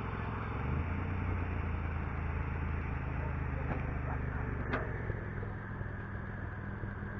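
Commodore's Buick V6 engine running at steady revs, with a sharp click about four and a half seconds in.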